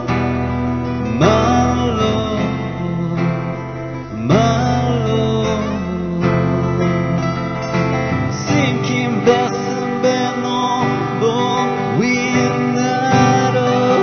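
Live acoustic guitar music: strummed acoustic guitar chords under a melody line that slides up into its notes a few times.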